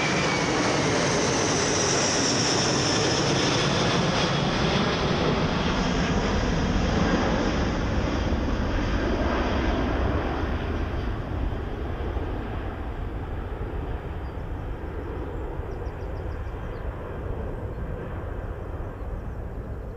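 Airliner engines passing on a go-around: a loud steady rush with a high whine that falls in pitch, fading away over the second half.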